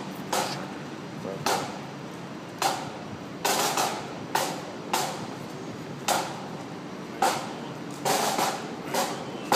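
Pipe band drums beating a slow, steady time, about one stroke a second, with a few strokes doubled.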